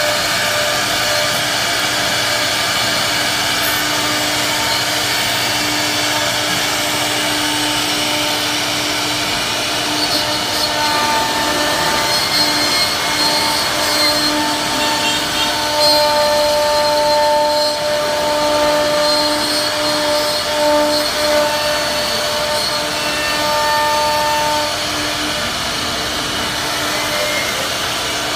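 CNC router spindle carving wood: a steady loud rushing machine noise with held whining tones over it, a few higher tones coming and going from about ten seconds in.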